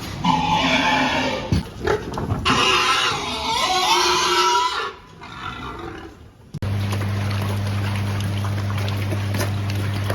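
Pigs squealing loudly for about the first five seconds, in harsh, wavering cries. About six and a half seconds in, a steady low machine hum starts and runs on evenly.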